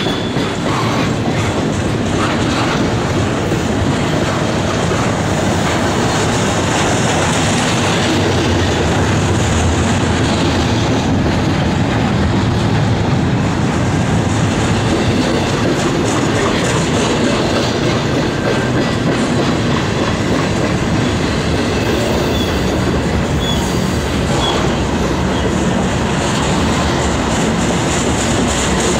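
Double-stack intermodal container train rolling past: steel wheels on the rails make a steady, loud noise, with a few faint, short high squeaks about three-quarters of the way through.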